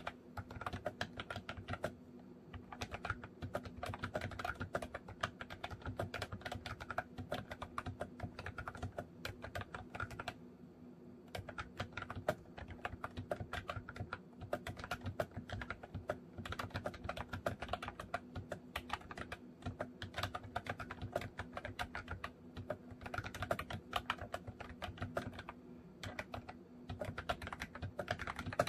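MOFii Retro Style Candy keyboard being typed on: fast, continuous runs of key clicks, with short pauses about two seconds in, around ten seconds in, and near the end.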